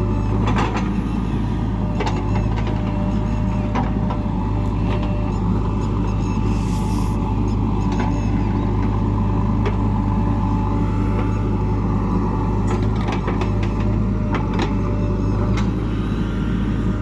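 Diesel engine of a backhoe loader running steadily under work, with scattered sharp knocks and clanks over it.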